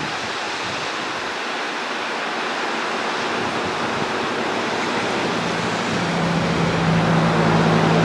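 Steady rush of falling water from a waterfall, slowly growing louder. About five seconds in, a low, steady engine hum from a passing vehicle joins it.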